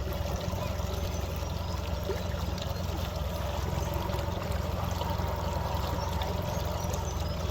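Water trickling and lapping around a small fishing boat, with small scattered drips and ticks over a steady low rumble.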